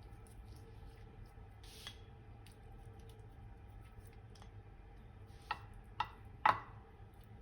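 Kitchen handling sounds during food preparation: a short soft squish a little under two seconds in, then three sharp clicks or knocks about half a second apart near the end, the last the loudest, over a low steady hum.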